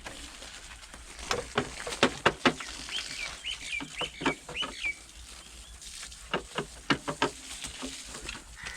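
A small bird chirping a quick run of about six repeated short notes in the middle of the stretch, amid two clusters of sharp clicks or knocks before and after.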